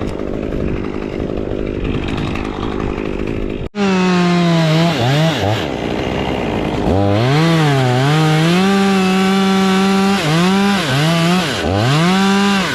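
Two-stroke chainsaw cutting through wood under load, then, after a brief break, running with the throttle being let off and squeezed again several times, so the engine pitch drops and rises back to full revs.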